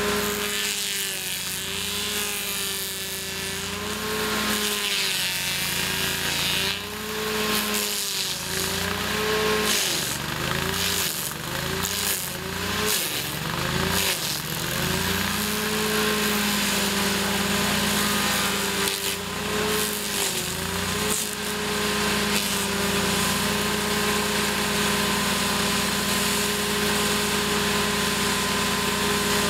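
Bandit stump grinder with a Kohler Command engine running hard while its cutter wheel chews into a tree stump, over a constant rasp of wood being ground. The engine note sags and recovers again and again as the wheel bites in under load, then holds steady for roughly the last third.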